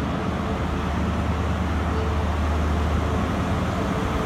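Diesel engine of a Class 43 High Speed Train power car running as the train rolls slowly into the platform. It is a steady low hum.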